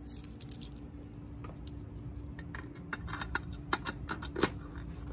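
A bunch of keys on a ring clinking as they are sorted through to find the right one: a scatter of small metallic clicks, the sharpest a little before four and four and a half seconds in.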